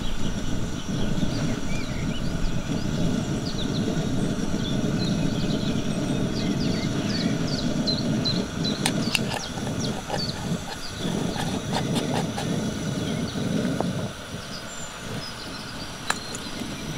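Portable gas camping stove burner running steadily under a pan of simmering stew, with small birds chirping throughout. The low rumble of the stove drops noticeably about fourteen seconds in, and there are a couple of sharp clicks.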